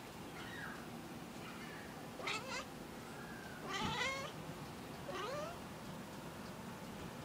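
Domestic cat giving a few short, rising meows while fixed on a fly it cannot reach through the window glass. The loudest call comes about four seconds in.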